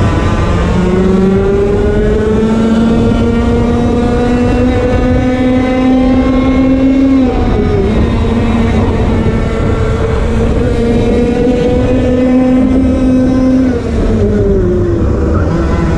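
Onboard sound of a 125cc two-stroke TAG racing kart engine at full throttle, its pitch climbing steadily, then dropping sharply about halfway through and again near the end as the driver lifts for corners, before climbing again.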